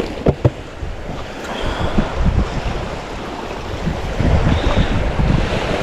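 Wind buffeting the microphone, a steady rush with two heavier low rumbling gusts, one about two seconds in and one about four seconds in, and a few small clicks near the start.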